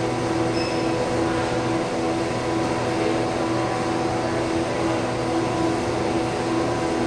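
Steady mechanical hum with several held tones under an even hiss, unchanging throughout.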